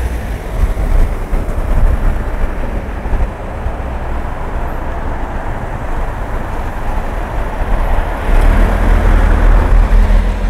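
City street traffic: passing vehicles make a steady noise with a deep low rumble. One vehicle grows louder from about eight seconds in and passes near the end.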